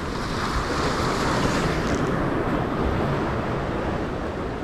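Ocean surf washing over jetty rocks, swelling about a second in, with wind on the microphone.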